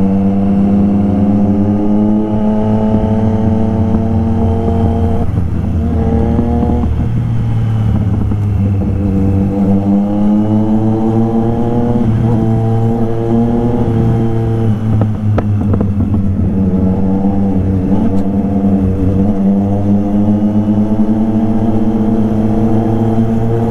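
Triumph Street Triple RS's inline three-cylinder engine running at moderate road speed. Its pitch rises and eases off several times with the throttle.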